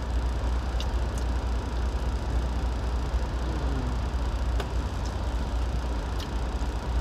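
Steady low rumble of an idling truck engine, heard inside the cab, with a few faint clicks.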